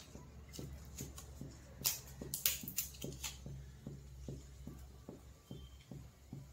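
Cumin seeds crackling in hot oil in a kadai: a few sharp pops between about two and three and a half seconds in, over a faint regular ticking about three times a second.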